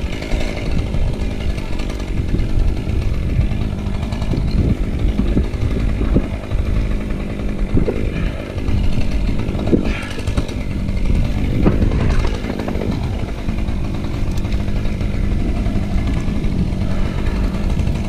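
Gasoline chainsaw running steadily, with a few short knocks along the way.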